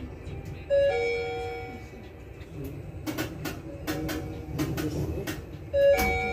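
Sigma IRIS elevator chime: a two-note falling ding-dong, a short higher note then a longer lower one, sounding about a second in and again near the end. Scattered clicks and knocks can be heard between the two chimes.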